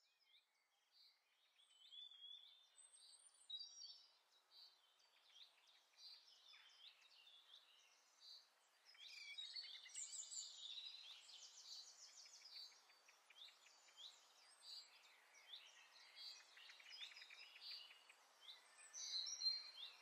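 Faint birdsong: many short chirps and rapid trills over a low hiss, getting busier about halfway through.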